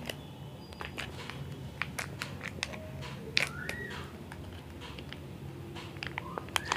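Scattered sharp clicks and taps of a plastic face-pack jar and its seal being handled and opened, over a faint low hum. A short chirp sounds twice, in the middle and near the end.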